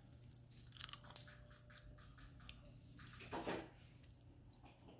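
Faint clicks and light rattling of hard plastic toy-track pieces being handled and fitted together, with a cluster of small sharp clicks about a second in and a soft rustle past three seconds.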